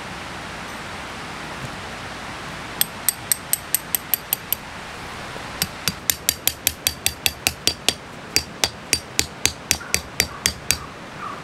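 A hammer driving a tent peg into hard ground: sharp ringing strikes, a quick run of about seven, a brief pause, then a longer run at about three strikes a second that stops shortly before the end.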